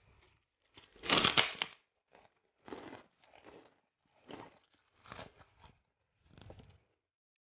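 A large white kerupuk cracker crunching and crackling as it is crushed by hand, loudest about a second in, followed by several shorter crunches.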